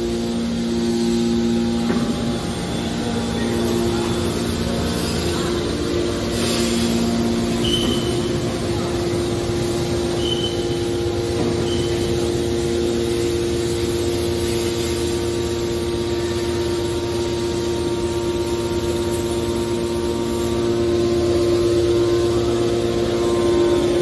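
Hydraulic power unit of a scrap metal baler running: electric motors driving hydraulic pumps, giving a steady machine hum with a held whine.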